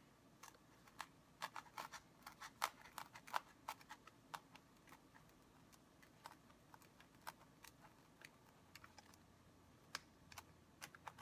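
Faint, irregular ticking and crackling of a utility knife blade sawing up and down through layered foam. The ticks come in quick clusters, thickest in the first few seconds and near the end.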